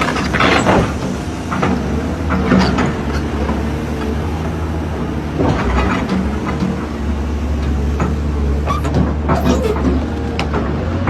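A heavy diesel engine running steadily at idle, with scattered metallic knocks and clanks.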